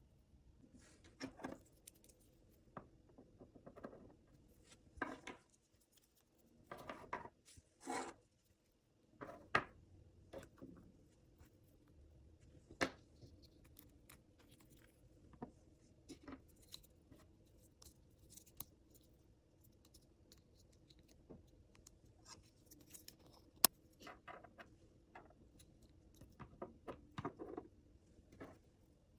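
Small cardboard and plastic toy packaging being opened and handled: scattered light clicks, taps and short rustles, with a few sharper clicks, over a faint steady hum.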